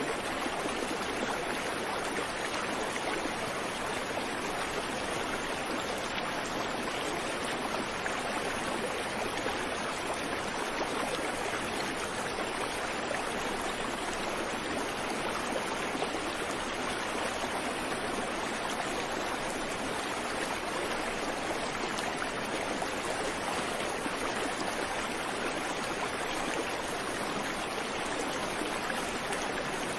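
Creek water flowing and babbling over rocks, a steady rushing with no birds.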